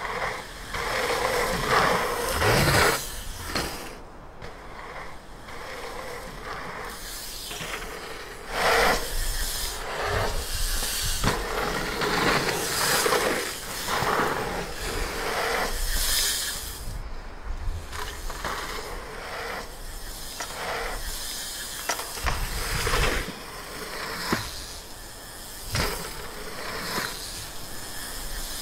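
Mountain bike riding dirt jumps and berms: knobby tyres hissing and skidding over loose dirt in repeated surges, with the rear freehub's ratchet buzzing at times while coasting. A few sharp thuds are heard along the way.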